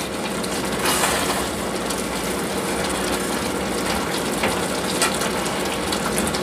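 A spoon stirring and scraping rice and peas around a saucepan of boiling coconut milk: a steady bubbling with small clicks and scrapes of the spoon against the pot.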